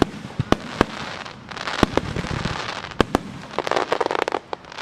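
Star mine fireworks barrage: sharp shell bursts about once a second over a fizzing crackle, with a dense run of rapid crackling pops from crackling stars near the end.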